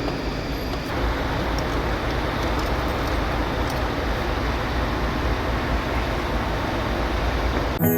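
Steady vehicle noise, a low rumble with a hiss over it, cut off just before the end as music starts.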